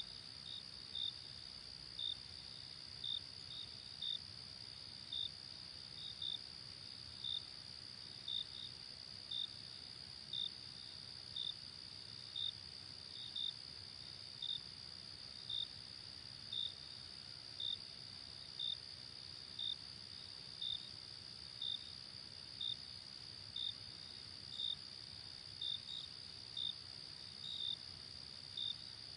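Crickets chirping: a steady high-pitched trill runs underneath, with a louder short chirp about once a second, now and then two close together.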